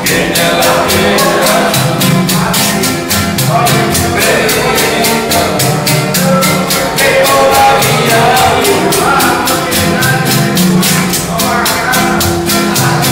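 Live Latin music from two acoustic guitars and a metal güira. The güira is scraped in a steady rhythm over the strummed guitar chords.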